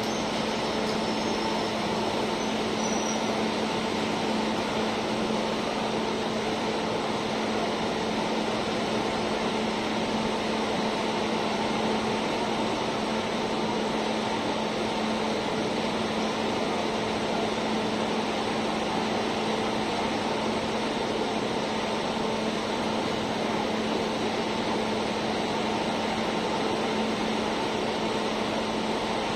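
Passing coaches of a departing Indian Railways express train, rolling slowly by with the steady hum of the AC coaches' air-conditioning units: an even rushing noise with a constant low drone and no distinct wheel clicks.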